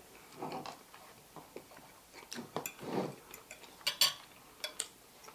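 Fork clinking and scraping on a dinner plate, a few short sharp clicks with the brightest about four seconds in, with soft eating and food-handling sounds between.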